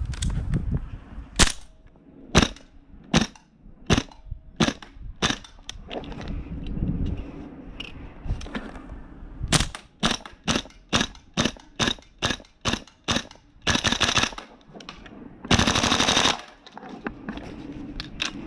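Tokyo Marui MWS gas-blowback M4 airsoft rifle firing: single semi-automatic shots, each with the bolt cycling sharply, about one every 0.7 s at first and then faster, followed by two short full-auto bursts near the end.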